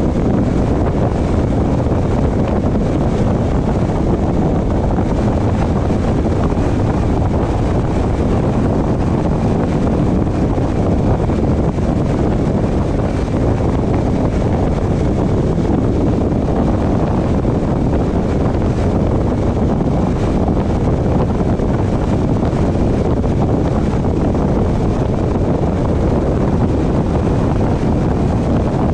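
Steady rush of wind on the microphone mixed with road noise from a moving car, low and even throughout with no breaks.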